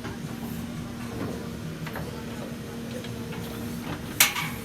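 Case 770FX backhoe loader running steadily with its engine drone, small ticks and knocks, and one sharp metallic clank about four seconds in.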